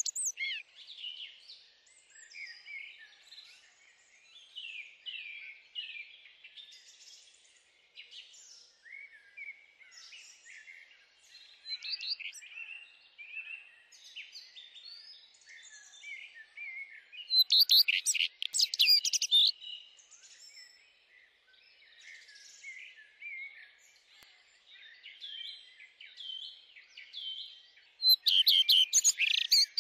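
Several songbirds singing, a steady run of short chirps and warbles, with two louder bursts of fast, high chirping, one about seventeen seconds in and one near the end.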